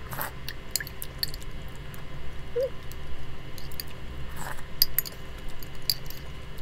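A metal spoon clinks and scrapes against a glass mug while scooping out melted crema de leche, in a run of small sharp clicks, with a few soft mouth sounds of eating it.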